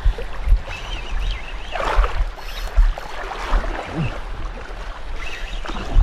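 Water sloshing and slapping around a small boat, with wind buffeting the microphone in irregular dull thumps.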